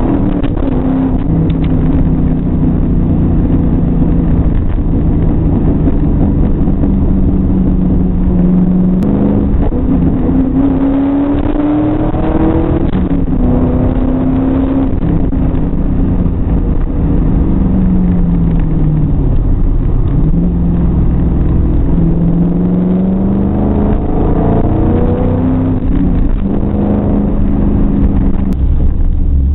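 1999 Ford Mustang GT's 4.6-litre V8 heard from inside the cabin while driving. Its pitch climbs under acceleration and drops back several times as the car is worked through the gears, over steady road rumble.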